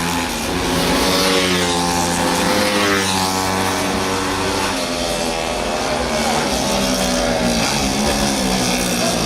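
Small 70cc racing motorcycle engines revving hard, their pitch rising and falling over and over as the bikes pass, with music in the background.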